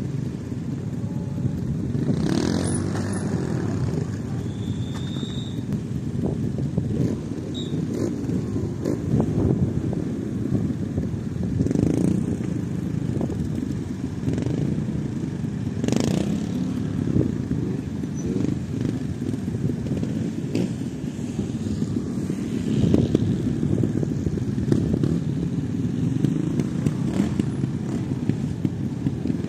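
Several trials motorcycles' single-cylinder engines idling, with a few louder throttle blips along the way.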